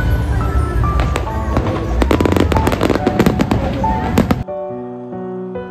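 Aerial fireworks going off in a rapid barrage of bangs and crackles over music. About three-quarters of the way through, the fireworks stop abruptly and only the music, a soft keyboard tune, goes on.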